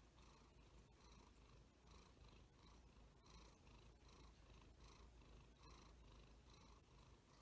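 Domestic cat purring faintly right by the microphone, a steady low rumble with an even pulsing.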